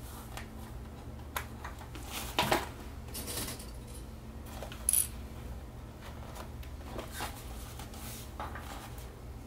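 Fabric pieces being handled and fastened with small plastic sewing clips: scattered light clicks and rustles, the sharpest click about five seconds in, over a low steady hum.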